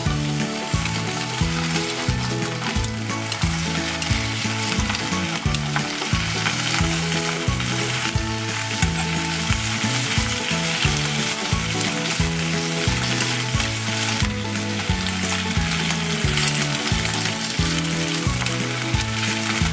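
Bacon sizzling steadily in a hot nonstick frying pan with no oil added, the bacon frying in its own rendering fat. Metal tongs now and then move and turn the slices, with a few light clicks against the pan.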